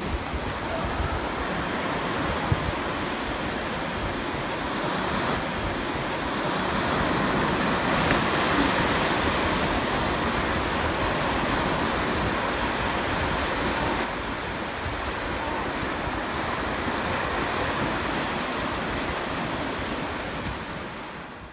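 Ocean surf breaking and washing up a sandy beach: a continuous rushing that grows louder for several seconds around the middle, with wind rumbling on the microphone.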